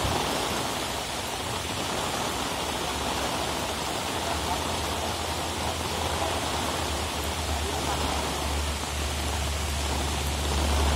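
Heavy, torrential rain pouring down steadily as an even hiss. A low steady rumble underneath grows stronger from about four seconds in.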